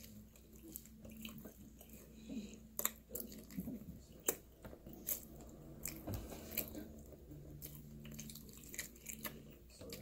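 A person biting and chewing pizza crust, with irregular sharp clicks of the bites and chewing.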